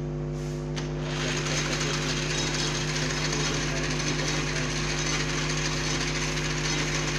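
Lathe machine running with a steady mechanical hum. About a second in, a louder, steady hissing rattle sets in and carries on.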